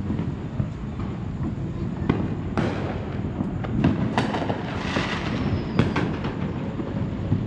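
Many private consumer fireworks going off at once, near and far: a steady low rumble of distant bangs with sharper reports scattered through it, and a crackling burst about five seconds in.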